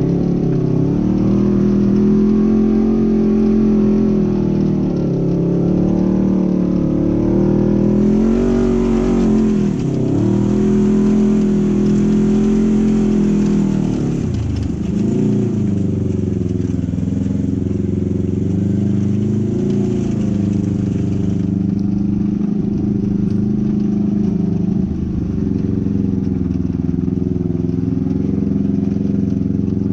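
Polaris RZR 900 XP side-by-side's twin-cylinder engine running under load, its pitch rising and falling with the throttle and dipping briefly several times.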